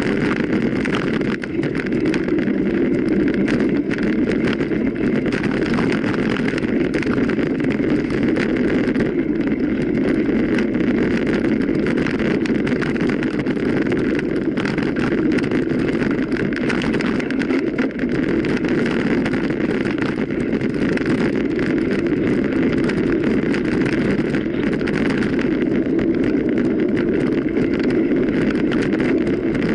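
Steady wind rush on the microphone mixed with constant light rattling and knocking, as from a mountain bike ridden over rough ground, with a couple of brief dips near two seconds and eighteen seconds in.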